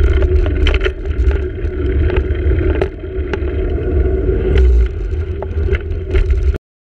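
Wind buffeting the microphone of an action camera on a moving bicycle, a steady low rush with irregular clicks and rattles from the bike rolling over paving. It cuts off suddenly near the end.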